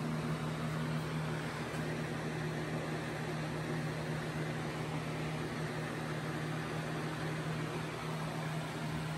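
A steady, even mechanical hum with a low drone and a hiss over it, unchanging throughout, like a fan or motor running in the room.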